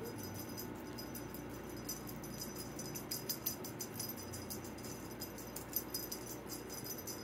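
A small bell jingling faintly and irregularly, in quick little clicks, as a cat moves and plays inside a fabric play tunnel.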